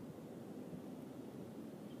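Faint, steady low rush of wind, with no shot or other event.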